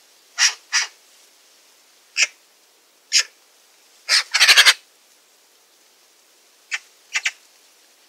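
Eurasian magpie giving short, dry chacking calls, singly and in pairs about a second apart. Just after four seconds in it gives a quick rattling chatter of about six notes.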